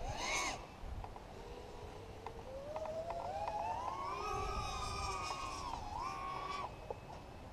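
Motors of an X-210 FPV racing quadcopter whining with the throttle: the pitch climbs steadily over a couple of seconds, holds, dips, rises again, then stops abruptly near the end.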